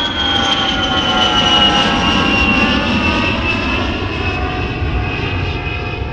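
Airplane passing overhead: a loud engine roar with a whine that falls slowly in pitch, fading a little toward the end.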